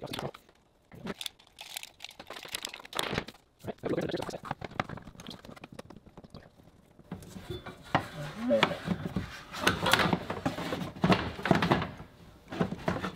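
Hands working a length of PEX tubing onto a barb fitting and handling the plumbing fittings: irregular rustling and crinkling with light clicks and knocks, sparse at first and busier from about halfway through.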